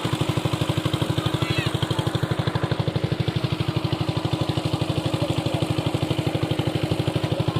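A small engine chugging steadily at an even idle-like pace, about a dozen low beats a second.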